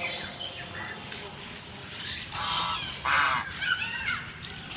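Birds calling in an aviary: two loud harsh calls about two and three seconds in, then shorter chirps.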